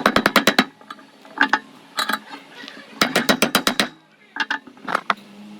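Bursts of rapid sharp strikes, about ten a second, each burst lasting under a second, near the start and again about three seconds in, with a few single strikes between and a faint steady hum underneath.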